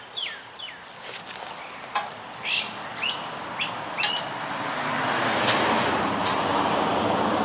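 Pressurised white gas hissing out of an old Coleman camp stove's burner as the fuel valve is opened. The hiss starts about halfway through and grows steadily louder, with a few metal clicks from the valve. Birds chirp with short falling calls in the first half.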